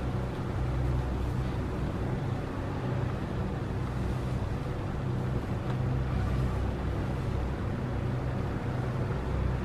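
A steady low mechanical hum and rumble runs throughout, even in level.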